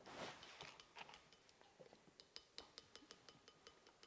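Faint, light clinks of a measuring spoon tapping against the rim of a blender jar to get honey off it, the taps coming closer together from about halfway through, several leaving a brief ring.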